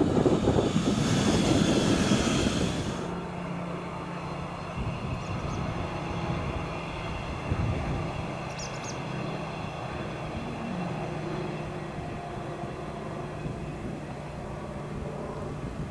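Narrow-gauge RBS RABe 4/12 NeXT electric railcar passing close: a loud rush of wheels on rail that cuts off about three seconds in. After that, the same train runs at a distance with a steady electric hum.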